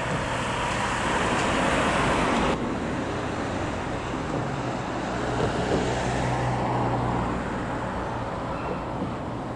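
Jet airliner's engines rumbling steadily as it climbs away after takeoff, cut off abruptly about two and a half seconds in. A fainter steady rumble with a low hum follows.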